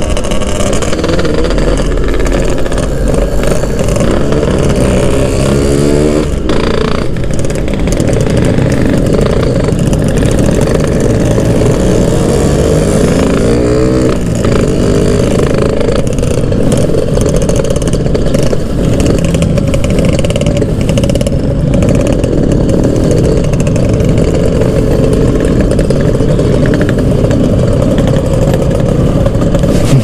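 Two-stroke motorcycle engine under way in traffic, revving up through the gears. Its pitch rises a few seconds in and again partway through, over steady wind and road noise.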